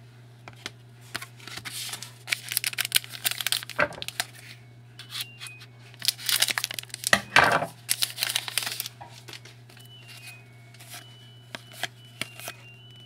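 A trading card pack wrapper being torn open and crinkled, in two bouts of crackly tearing with sharp snaps, over a steady low hum.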